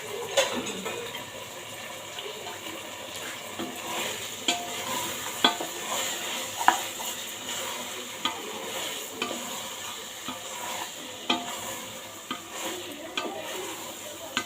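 A spoon stirring food frying in a cooking pot, with a steady sizzle and the spoon knocking against the pot every second or so.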